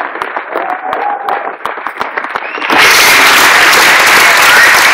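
Audience applause, scattered clapping at first, then swelling abruptly into loud, dense applause a little past halfway through.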